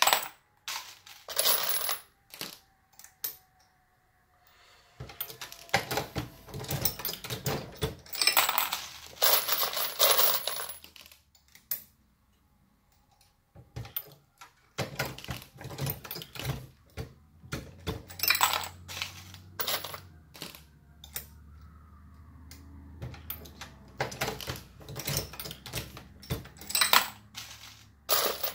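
Dillon RL550B progressive reloading press being cycled: intermittent metallic clacks from the press and brass .223 cases clinking as they are handled, with a couple of short pauses.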